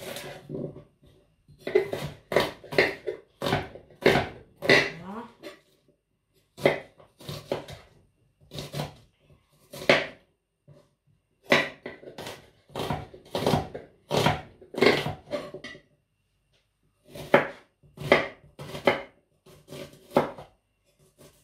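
Kitchen knife chopping an onion on a wooden cutting board: runs of quick, irregular knife strikes on the board, broken by short pauses of a second or so.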